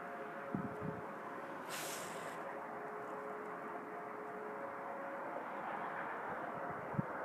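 Distant steam whistle sounding a steady chord of several tones over a background hiss. The upper notes fade out within the first few seconds and the lowest note holds until about two-thirds of the way through. There are a few low thumps about half a second in and near the end.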